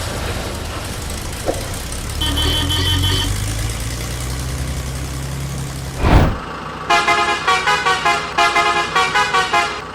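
Low, steady vehicle engine rumble with a quick run of horn beeps about two seconds in. A whoosh follows at about six seconds, then a fast series of horn-like toots, about four or five a second, for the last three seconds.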